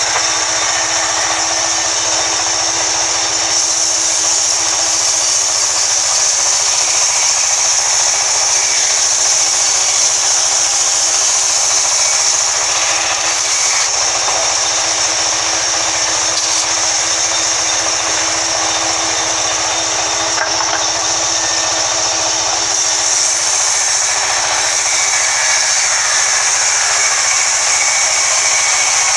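Large vertical band saw ripping a log lengthwise into slabs: a steady, high-pitched sawing noise from the blade in the wood, with the machine running underneath and no break.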